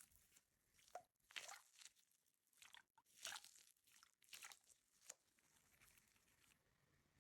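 Faint, scattered short crunches, about a dozen spread irregularly over several seconds.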